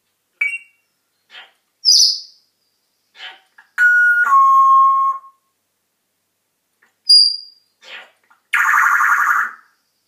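African grey parrot whistling: a few short chirps and high whistles, then a clear two-note whistle held about a second and a half that steps down to a lower note, another brief high whistle, and a harsher, raspy call near the end.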